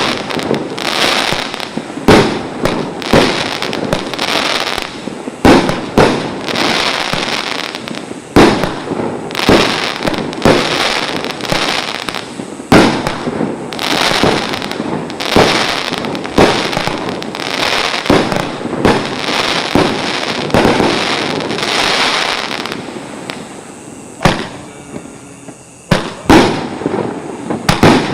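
Multi-shot consumer firework batteries (16 to 19-shot cakes) firing: sharp bangs roughly once a second, with crackling between them. There is a brief lull near the end before more shots go off.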